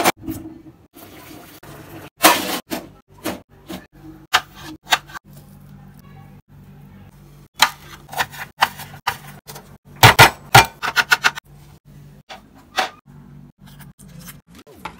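Irregular sharp knocks and taps of food being handled and cut on a wooden cutting board, with a quick run of loud taps about ten seconds in, over a steady low hum.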